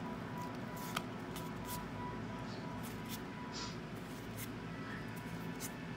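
Pokémon trading cards being flipped and slid against each other in the hands: faint scattered clicks and brushes, with a sharper tick about a second in, over a steady low room hum.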